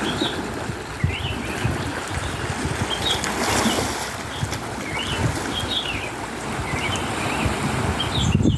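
Sea water sloshing and lapping, with wind buffeting the microphone in uneven low gusts. Short high chirps recur about once a second.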